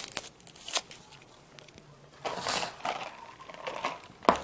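Light clicks and crinkling of food packaging and a drink being handled, with a short rustle a little past the middle.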